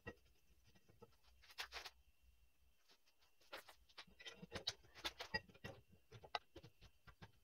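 Faint scattered clicks and taps from hands handling the rear brake caliper, rotor and tools: a short cluster about a second and a half in, then a busier run of light clicks from about three and a half seconds until shortly before the end.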